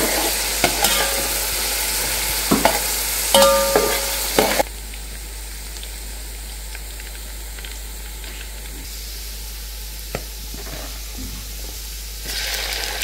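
Chopped onions and whole spices frying in hot oil in a metal pot, sizzling while a metal spoon stirs and scrapes against the pot. The sizzle drops suddenly about a third of the way in and grows louder again near the end as chopped tomato goes into the pot.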